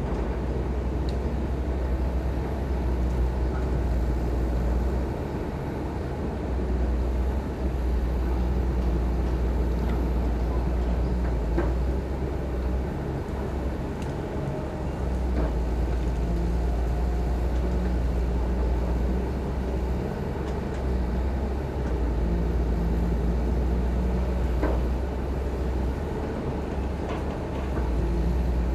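Heavy diesel construction machinery running, a steady low engine rumble that eases and swells every few seconds.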